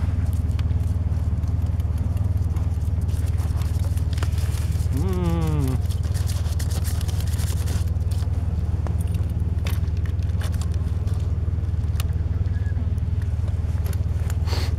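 BMW R 1200 GS Adventure's boxer-twin engine idling steadily while still cold, just after a cold start in −12 °C frost.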